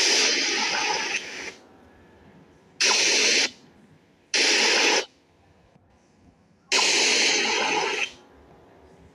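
Four loud bursts of hissing noise. The first and last each last about a second and a half, the middle two about half a second, with quiet gaps between them.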